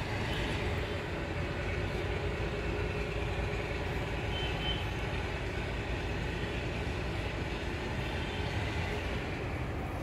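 Steady low rumbling background noise with no distinct events.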